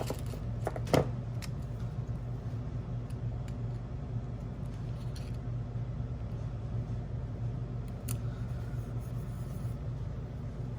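Scissors snipping paper, trimming the white border off a sticker: a few sharp snips in the first second and a half and one more about eight seconds in, over a steady low hum.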